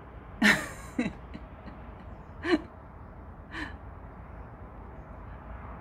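A person's voice making four short exclamations without words, each falling in pitch, the first and loudest about half a second in.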